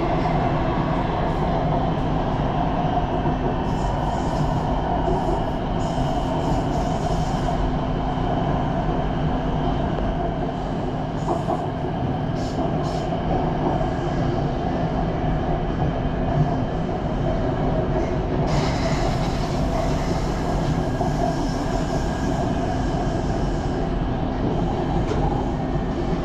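Inside the carriage of an elevated electric train on the move: a steady rumble and hum of wheels and motors. A brighter hiss joins about two-thirds of the way through.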